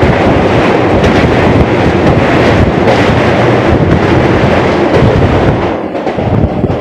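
Electric multiple-unit local train running over a steel truss bridge, heard from an open doorway: a loud, dense rumble and clatter of wheels on the girder span, with wind rushing past the door. It eases off about six seconds in as the train comes off the bridge.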